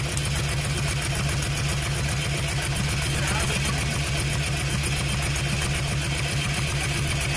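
Cruiser motorcycle engine idling steadily, an even low pulsing with no revs.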